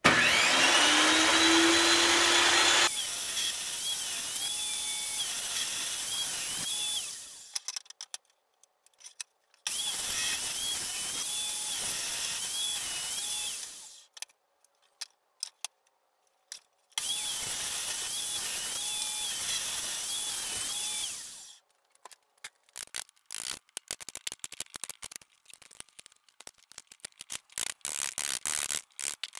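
Benchtop table saw spinning up with a rising whine, then cutting a slot along a wooden board in three passes. Its pitch wavers under load, and it winds down between passes. Near the end come many sharp taps of a wooden mallet on a chisel, clearing out the slot.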